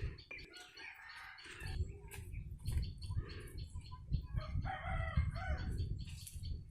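A rooster crowing about five seconds in, with shorter chicken calls before it, over a steady low rumble.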